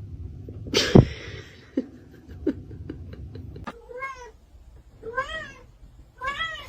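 A cat meowing three times in the second half, each call rising and falling in pitch, after a sharp knock about a second in.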